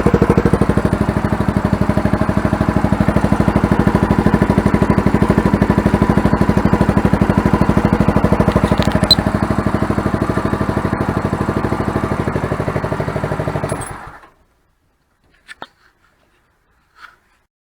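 Engine idling steadily through a cheap AliExpress aftermarket exhaust silencer, fitted to make it quieter. About fourteen seconds in it is switched off and cuts out suddenly, followed by a couple of faint clicks.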